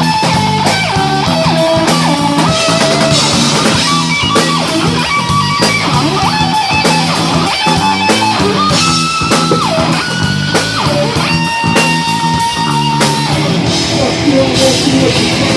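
Rock band playing live: an instrumental electric-guitar lead of held notes that slide and bend between pitches, over bass guitar and a drum kit.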